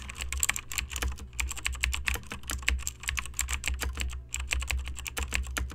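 Rapid, irregular clicking, many sharp clicks a second, over a low steady hum.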